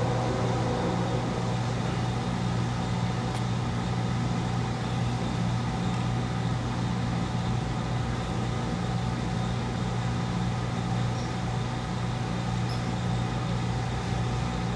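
Diesel freight locomotives running with a steady, unchanging drone: a low hum with overtones.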